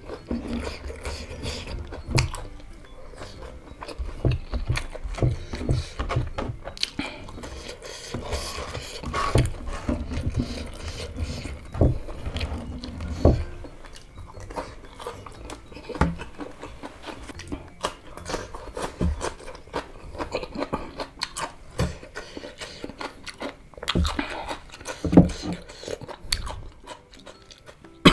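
Close-miked chewing and crunching of crispy breaded chicken nugget with rice, eaten by hand, with irregular mouth clicks and smacks throughout.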